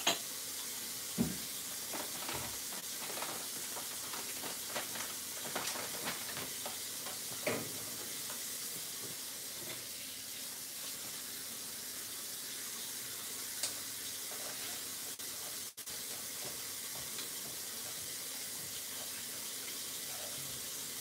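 Steady sizzling from a pot of rice cooking with oil on a gas stove, with scattered clicks and knocks of kitchen items being handled, the loudest knock about a second in.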